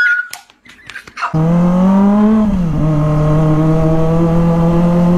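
Kawasaki ZX-25R's 250 cc inline-four engine running steadily at mid revs while riding. It comes in abruptly about a second in, rises a little, dips briefly as the revs drop, then holds steady.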